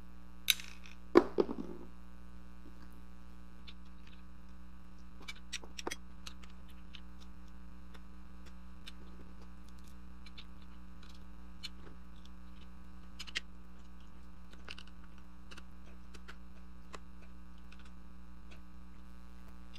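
Steady electrical mains hum, with scattered small clicks and knocks from the filter housing and bracket being handled and fitted together. The sharpest knock comes about a second in, and a few clicks bunch together around five or six seconds in.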